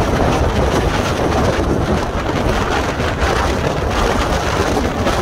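Storm wind of about 40 mph buffeting the microphone: a loud, steady rushing rumble, with the wash of waves breaking along the shore mixed in.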